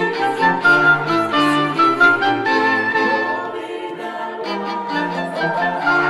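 A small chamber ensemble of bowed strings, violins and cello among them, playing a lively classical-style piece, with a quick melody over sustained lower notes.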